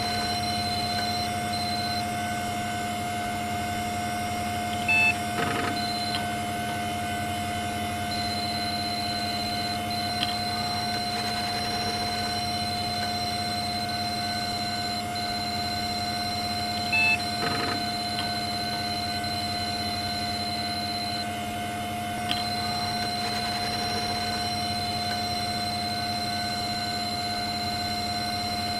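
Retro computer terminal sound effects: a steady electronic hum made of several held tones, with a short burst of beeps about every twelve seconds.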